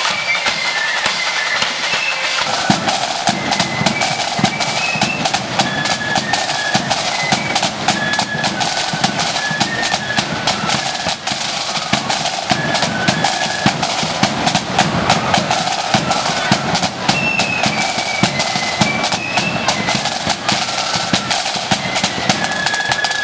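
Marching flute band playing: a high stepping flute melody over rapid snare drum rolls and steady bass drum beats.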